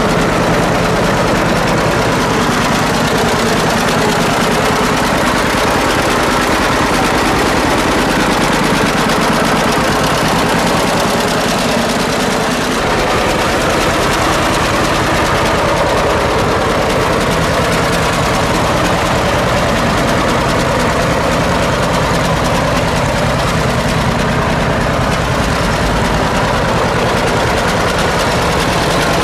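Old John Deere tractor engine running steadily at idle.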